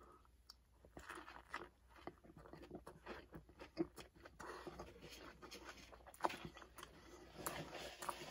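Close-miked chewing of a mouthful of cheeseburger: soft, wet mouth sounds with many quick clicks and smacks, two of them sharper, near the middle and about two-thirds through.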